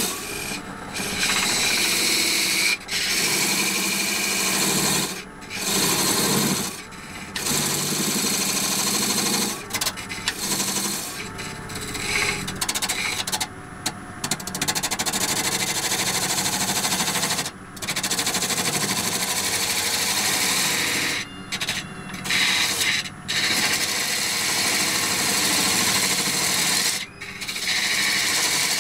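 Parting tool cutting a groove into a wood blank spinning on a wood lathe, parting off a box lid: a steady scraping hiss with the lathe running, broken by many brief dips.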